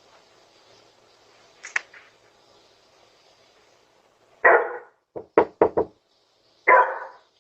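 Knocking on a door: a heavy bang, a quick run of four sharp knocks, then another heavy bang.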